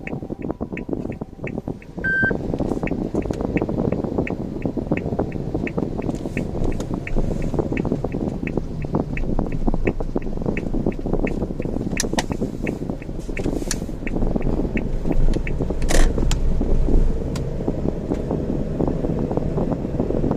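A car driving with steady road and engine noise, and a light, even ticking about three times a second throughout. A few sharper clicks come near the end.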